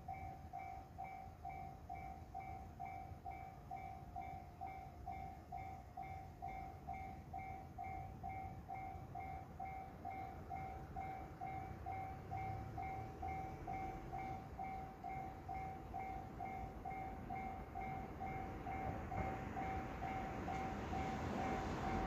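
Japanese railway level-crossing alarm ringing steadily, a two-tone ding repeating about twice a second. From about halfway, the rumble of an approaching train rises under it and grows louder toward the end.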